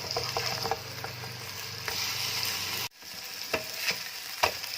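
Chicken chapli patties (spiced minced-chicken patties) frying in shallow oil in a pan: a steady sizzle with scattered pops and crackles. The sound drops out for an instant just under three seconds in, then the sizzling carries on.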